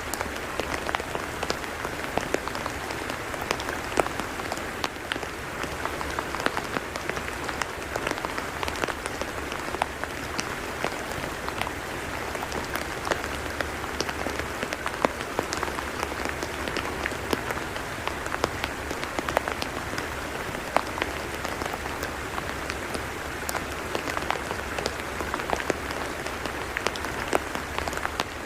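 Steady rain falling on a wet tidal mudflat: an even hiss dotted with many small, sharp drop ticks.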